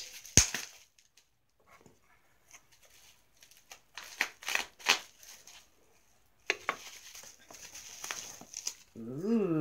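Bubble wrap crinkling and tearing as it is pulled off a small item by hand, in scattered crackles, with one sharp knock about half a second in.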